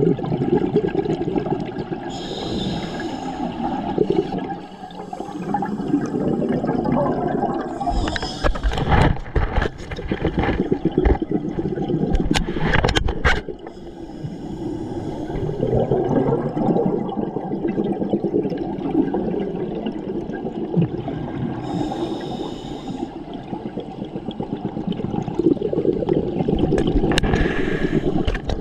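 Scuba regulator breathing heard underwater: exhaled air bubbling and gurgling past the microphone in long spells, broken every several seconds by a short hiss of an inhaled breath. A few sharp knocks come about a third of the way in.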